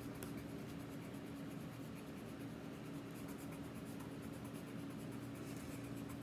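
Colored pencil rubbing on paper as a drawing is colored in: a soft, steady scratching. A faint steady hum sits underneath.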